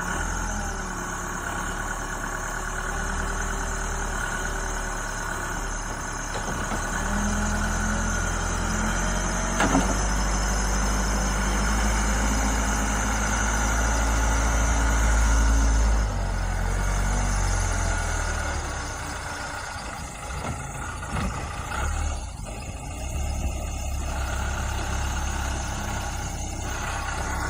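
Backhoe's diesel engine running while plowing snow, working harder and louder from about a quarter of the way in, then easing back suddenly a little past the middle.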